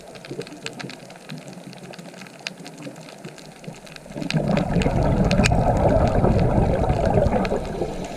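Water splashing and trickling with scattered small clicks, turning into a much louder low rush about four seconds in that eases off near the end.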